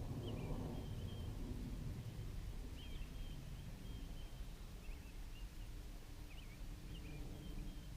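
Small birds chirping in short, high, repeated notes, over a steady low rumble of outdoor background noise.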